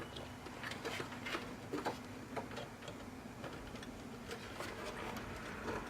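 Faint, irregular clicks and taps of power supply cables and plastic connectors being handled and plugged in inside a desktop PC case, over a steady low hum.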